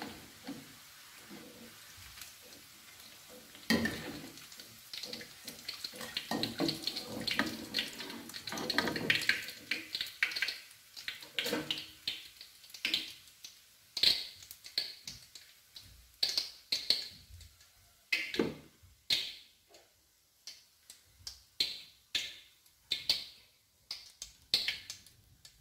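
Hot frying oil sizzling and dripping as corn fritters are lifted from a wok in a wire-mesh strainer and held over it to drain, with clinks of the metal strainer and spatula against the wok. It starts as a steady soft sizzle, grows busier about four seconds in, and then breaks into short, sharp splashes and clinks about once a second.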